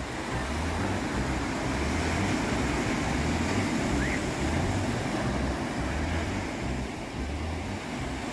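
Ocean surf washing steadily, with wind buffeting the microphone in uneven low rumbles.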